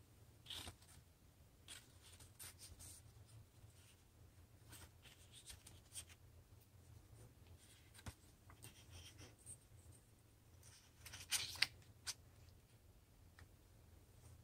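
Faint rustling and handling of a strip of construction paper, with scattered light taps and clicks. A short, louder clatter comes about eleven seconds in, as a metal ruler is handled against the paper.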